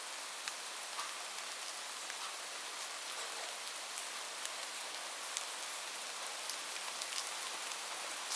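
Light rain falling steadily: an even hiss with many separate drops ticking on a surface.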